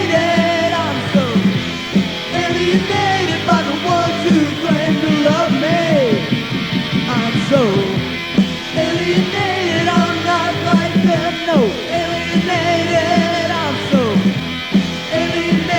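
Pop punk band recording from a cassette demo tape: loud, dense full-band rock with a steady drum beat and sliding pitched lines.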